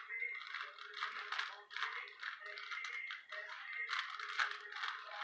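Rubik's cube layers being twisted by hand: quick, irregular plastic clicks and rattles.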